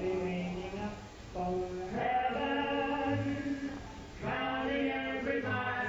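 A group of voices singing in harmony, holding long notes of about two seconds each over a low bass note, from a vintage song recording.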